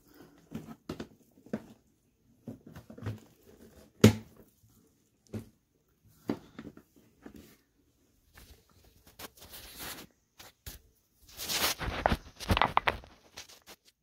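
Jigsaw puzzle pieces and dry dirt being handled on carpet: scattered light clicks and rustles, one sharper click about four seconds in, and a denser patch of rustling and crunching near the end. No vacuum is running.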